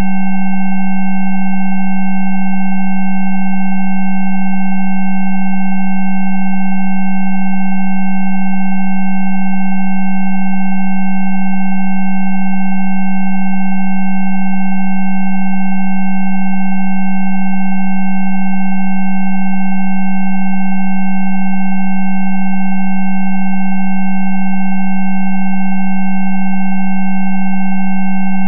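Synthesized Rife-frequency tones, a 'healing frequency' track for adhesions. A loud steady low hum has several fainter higher pitches held over it, all unchanging.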